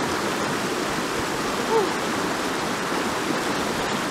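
Steady rush of a shallow, rocky stream running in white-water rapids over stones. A short pitched chirp-like sound stands out a bit under two seconds in.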